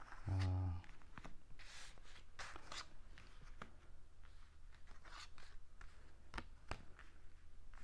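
Cards being slid across and laid down on a tabletop: soft swishes of card stock, with a couple of sharp taps near the end.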